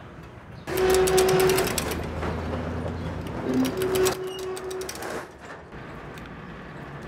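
Metal roll-up shutter door rattling as it is pulled by hand: a rapid clatter of its slats with a steady squeal, in two runs about three seconds apart.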